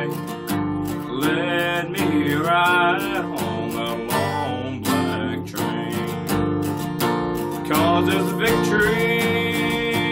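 Acoustic guitar strummed in a steady rhythm while a man sings along, the voice coming in phrases with breaks between them.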